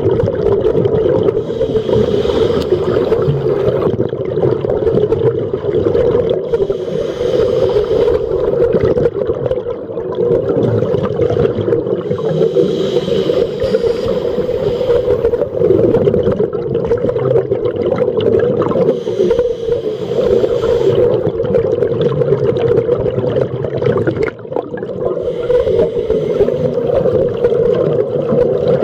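Underwater recording of scuba breathing through a regulator: bubble bursts and hiss that come back every five to six seconds over a steady hum.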